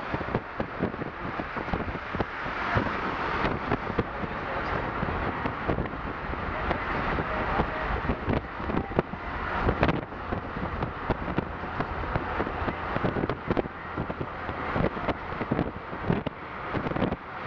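Gusty wind buffeting the camcorder microphone, a continuous rushing noise broken by many irregular thumps.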